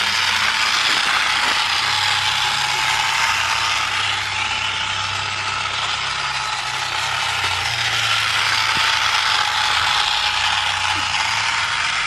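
Several battery-powered plastic toy trains running at once on plastic track, their small motors and gearboxes whirring with a steady clicking rattle and a thin motor whine.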